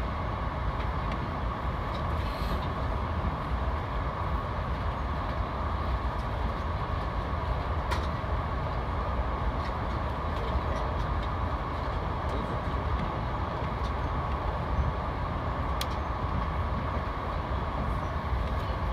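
Steady rumble and rushing noise of a VIA Rail passenger train running at speed, heard from inside the coach, with two brief clicks.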